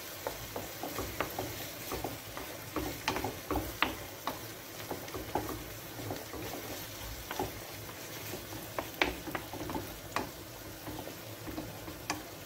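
Wooden spoon stirring minced meat and tomato paste in a frying pan, with irregular scrapes and knocks against the pan over a low sizzle of the frying meat.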